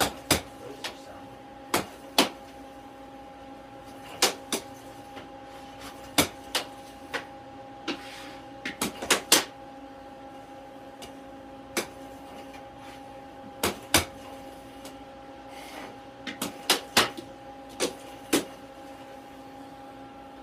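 Air hockey mallets and puck clacking sharply and irregularly, with quick rallies of several hits in a row, over the steady hum of the table's air blower.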